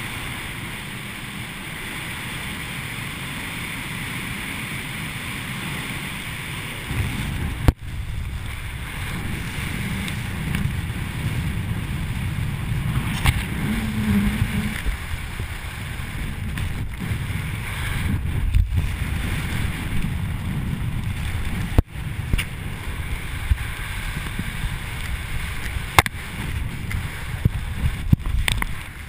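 Wind buffeting the microphone of a camera under an open parachute canopy during the descent: a steady rumbling rush that grows stronger about seven seconds in, broken by a few sharp clicks.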